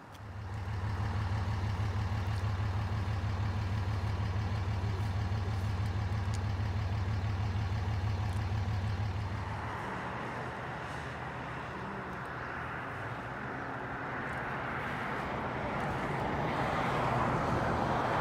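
A vehicle engine running with a steady low hum for about nine seconds, then giving way to a broader rushing road noise that grows louder toward the end.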